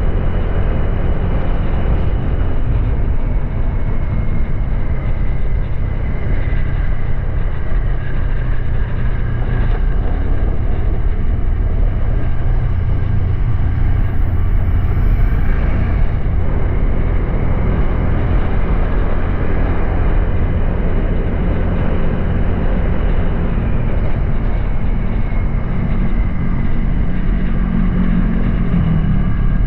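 Honda Click 125i scooter's single-cylinder engine running at riding speed under heavy wind rush on the microphone; the engine note rises near the end.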